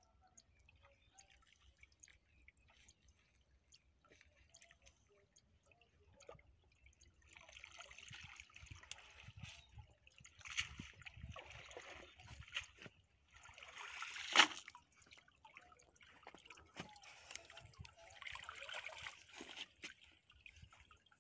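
Water trickling and sloshing as a wet fishing net is pulled out of a river by hand, dripping back into the water, with one sharp splash about two-thirds of the way through. It is faint at first, and the water sounds start after several seconds.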